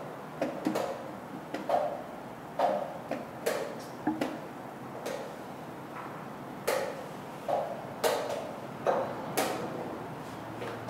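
Irregular sharp clicks and knocks, one or two a second and unevenly spaced: wooden chess pieces set down and chess-clock buttons pressed in other blitz games close by.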